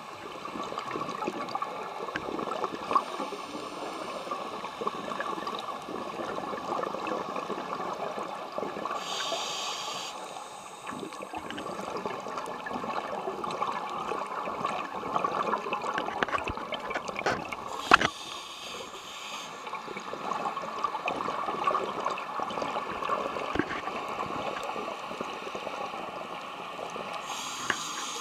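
Underwater sound through a camera housing: a steady muffled rush, broken three times by bursts of bubbling from a scuba diver's exhaled breath, plus one sharp knock about halfway through.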